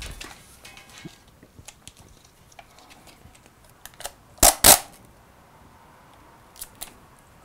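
Hand-operated film tape splicer being worked: two sharp snaps in quick succession about halfway through, then two lighter clicks near the end, as its blade comes down to cut the splicing tape and perforations, with faint rustles of film and tape being handled.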